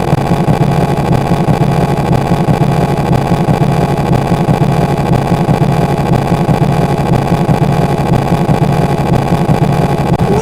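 Loud, steady, rough engine-like rumble sound effect with a rapid flutter throughout.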